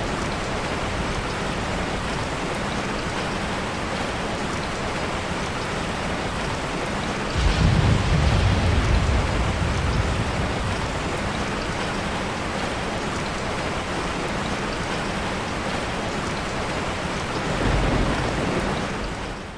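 Steady heavy rain with a thunderclap breaking in about seven seconds in and rumbling for a few seconds, then a softer rumble of thunder near the end before the sound fades out.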